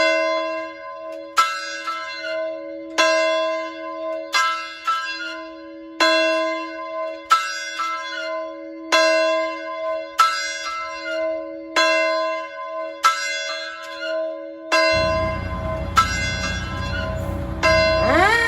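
Large fire alarm bell struck over and over, about one stroke every second and a half, each stroke ringing on under the next. About fifteen seconds in a low fire truck engine rumble joins, and near the end a siren starts winding up.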